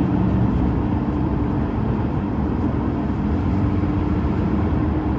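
Steady road noise and engine hum heard from inside a moving car's cabin, with a low, even rumble and a faint constant hum and no distinct events.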